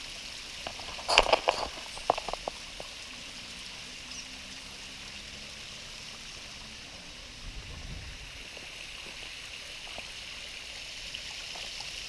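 Small forest stream running over rocks, a steady rush of water. About a second in, a quick run of knocks and clicks stands out above it.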